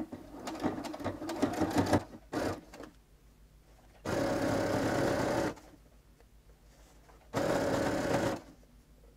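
Electric sewing machine straight-stitching a rolled hem in terry cloth, in two short bursts of steady running, the first about four seconds in and the second shorter near the end. Before them come a couple of seconds of irregular rustling and knocking as the towel is folded and handled under the presser foot.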